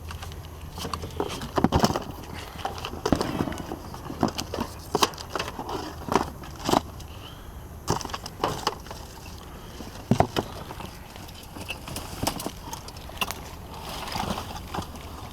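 Irregular knocks and clatter of hard objects being handled and shifted while discarded electronics and cables are rummaged through in a dumpster.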